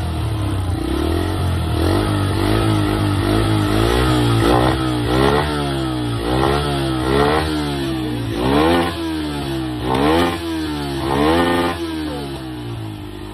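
Motorbike engine revved again and again in short blips, the pitch rising and falling with each one, the strongest revs in the second half. It drops back and gets quieter near the end.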